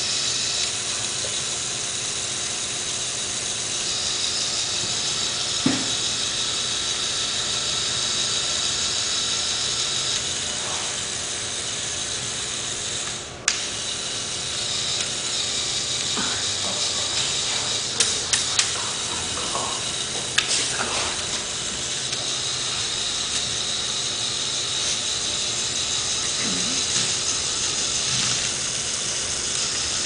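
LEGO Technic logging truck's Power Functions electric motor whirring steadily through its plastic gearbox and gear train as it works the crane arm, with a few sharp clicks from the mechanism in the middle.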